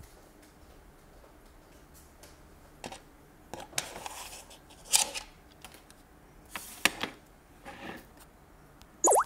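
Handling of plastic toys: irregular small clicks, knocks and brief rustles, starting about three seconds in, with a sharper, louder clatter near the end.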